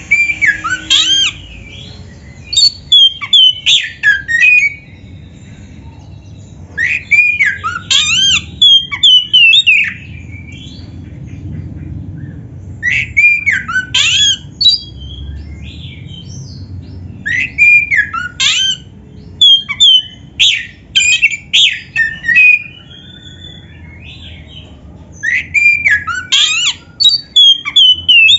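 Oriental magpie-robin (kacer) singing vigorously in the full 'gacor' style: bursts of loud, rapid, sweeping whistles and harsh notes, about five song bouts separated by pauses of one to three seconds.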